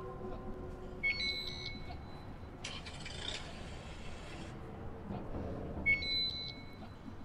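Electronic sound effects played through the band's field speakers: a pulsing high beep about a second in, then a hiss lasting about two seconds, and the same beep again near the end, over low stadium ambience.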